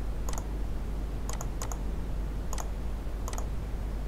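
Computer mouse clicking about five times at uneven intervals, some clicks in quick pairs, over a low steady hum.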